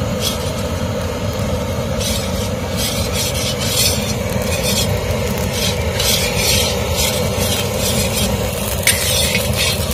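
A slotted steel spatula scraping and stirring white sesame seeds as they dry-roast in a large iron kadai. It makes repeated scratchy strokes, roughly one a second, over a steady low rumble.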